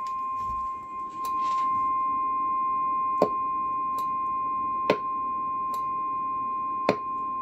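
A steady single-pitch test tone fed into a Pace Sidetalk 1000M CB radio's microphone to modulate the transmitter, with three sharp clicks over it about three, five and seven seconds in.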